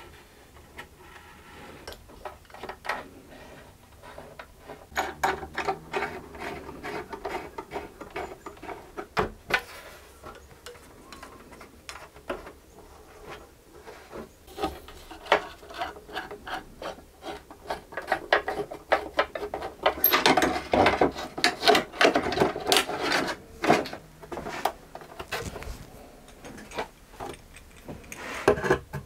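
A small knife cutting and scraping thin plywood reinforcement strips against the inside of a cello's wooden ribs. It makes irregular scraping strokes and clicks, busiest and loudest from about 20 to 24 seconds in.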